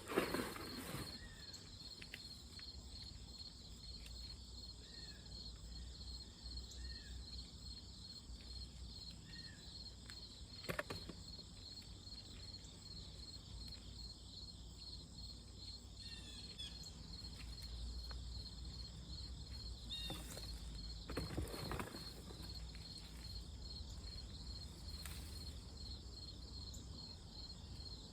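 Insects chirping steadily in a fast, even high pulse. A few brief rustling crackles come near the start, about eleven seconds in, and about twenty-one seconds in.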